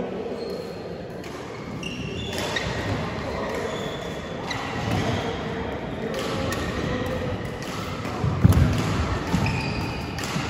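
Echoing sports-hall play: short high squeaks, knocks and thuds, with a louder run of heavy thuds about eight and a half seconds in, and faint voices underneath.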